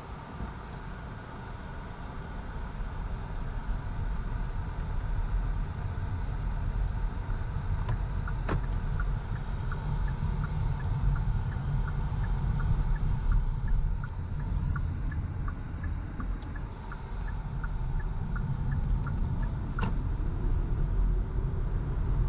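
Kia e-Soul electric car driving, with low road and tyre rumble that grows louder as it gathers speed. In the middle, a light ticking runs for about ten seconds at two or three ticks a second.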